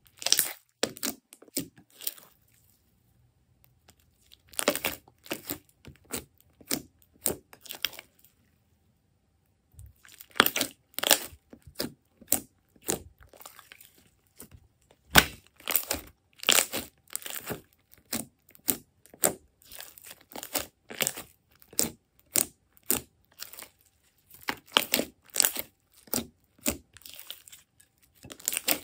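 Hands squeezing, stretching and pressing thick glossy slime, giving clusters of sticky crackles and small pops. The crackling stops briefly about three seconds in and again about nine seconds in.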